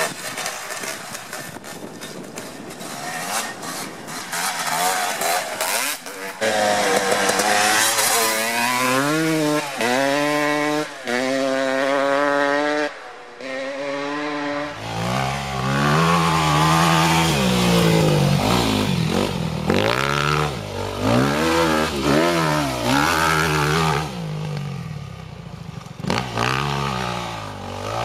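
Dirt bike engines revving hard, the pitch climbing and dropping over and over as the bikes accelerate and shift. About halfway through, a deeper-sounding bike takes over.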